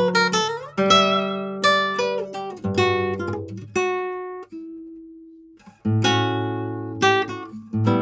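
Classical guitar in drop-D tuning played fingerstyle: plucked chords and melody notes that ring and decay. About halfway through it thins to a single note left ringing and fading, then a low chord about six seconds in starts the next phrase.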